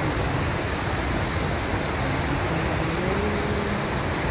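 Steady rushing of a large volume of falling water, as from a waterfall: a loud, even roar with no breaks.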